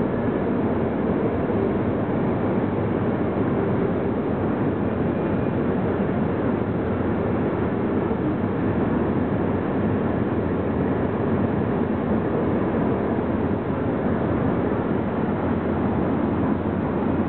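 Steady rumble of a long mixed freight train's cars rolling past, with no horn.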